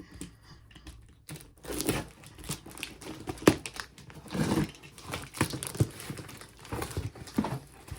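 A taped cardboard shipping box being opened by hand: packing tape being pulled and torn, with irregular crinkling and rustling of cardboard and packing, and a few sharp knocks.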